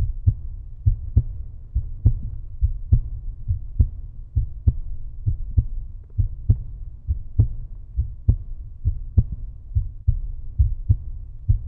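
Heartbeat sound effect: deep, low thuds repeating about once a second over a low rumble, cutting off abruptly at the end.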